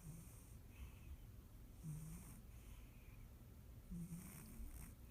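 Faint snoring: three short, low snores about two seconds apart, each with a breathy hiss.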